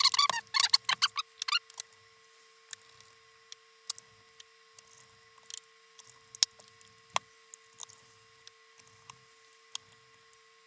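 Rapid run of plastic clicks in the first second and a half as the gaming laptop's plastic bottom cover is pressed and snapped into place during reassembly, then scattered light clicks and taps. A faint steady hum runs underneath.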